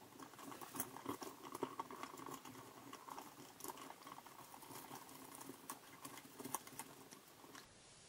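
Faint small clicks and scratching of hands working a wire and a screwdriver at a wall receptacle, fitting the neutral wire to its terminal screw. The clicks stop shortly before the end.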